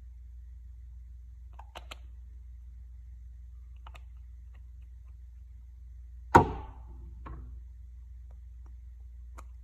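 Small objects handled on a hard surface: a few light clicks and, about six seconds in, one sharp knock with a short ring, followed by a softer knock, over a faint steady hum.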